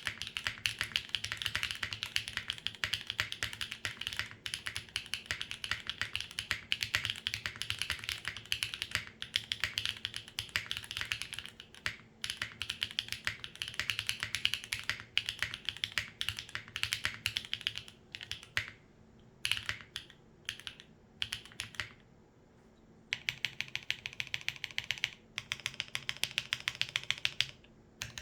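Mechanical keyboard typing on a Monokei Tomo with lubed Gateron Modern Grey switches, an aluminium top-mount plate and no foam, Durock V2 stabilizers and GMK Space Cadet keycaps. Steady fast typing broken by a few short pauses, then near the end a run of rapid, evenly spaced keystrokes.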